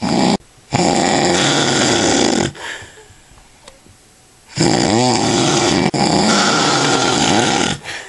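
Two long, loud snores from a man sleeping after heavy drinking, each lasting about three seconds with a quiet breath between them. The first snore breaks off briefly just after it starts.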